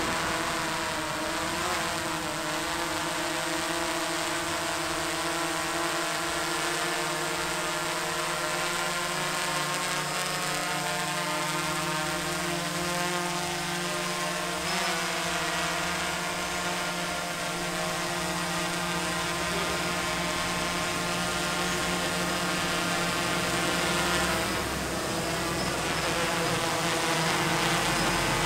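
Multirotor drone hovering: the brushless motors and propellers give a steady hum of several pitches at once, which wavers now and then as the motors speed up and slow down to hold position.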